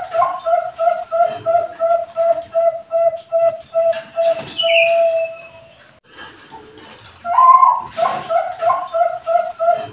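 Perkutut bangkok, a contest-bred zebra dove, cooing: a string of low, even coo notes about three a second ends on a longer held note. After a pause of about a second and a half, a new phrase opens on a higher note and runs into the same quick coos. A short high falling whistle sounds about halfway through.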